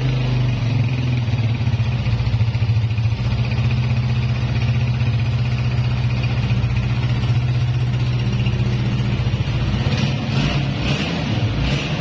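Honda CG 125's air-cooled single-cylinder four-stroke engine idling steadily after a rebuild with a new piston, rings and cam gear, running without its earlier internal noise.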